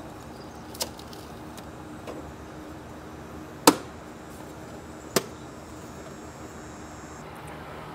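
A few sharp clicks and knocks of plastic engine-bay parts being handled, as hoses are pulled aside from the stock air intake box. The loudest comes a little before halfway and another about five seconds in, over a faint steady hum.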